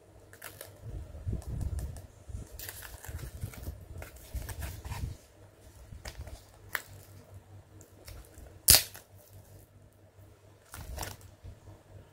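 Hands handling clear plastic acrylic-stand pieces and their case: scattered plastic clicks, light crinkling and soft knocks on the table, with one sharp snap about nine seconds in.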